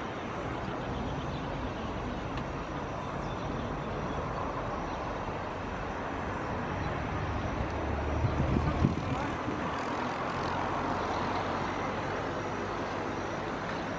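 Steady airport apron background noise, a distant even hum from the parked jet and ground traffic. A brief low rumble with a few knocks comes about eight seconds in.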